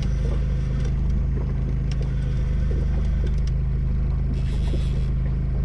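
Boat outboard motor running steadily at trolling speed, a constant low hum, with a brief hiss about four and a half seconds in.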